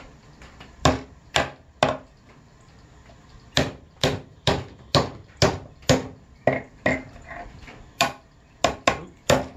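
Hammer driving a nail into the pine side of a wooden five-frame nuc hive box: three blows, a short pause, then a steady run of blows about two a second.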